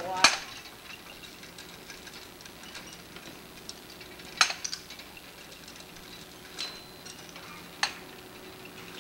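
Scattered sharp metallic clicks and clanks from the exercise machines: one right at the start, another about four seconds in followed by two smaller ones, and two more near the end, over a faint steady hum.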